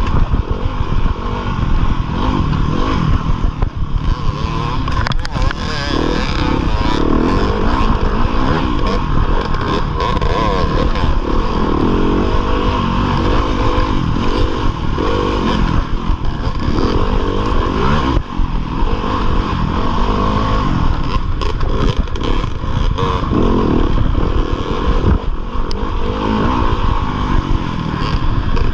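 2015 Yamaha YZ250FX dirt bike's 250cc four-stroke single-cylinder engine, heard from the rider's chest while racing, revving up and down repeatedly as the throttle opens and closes.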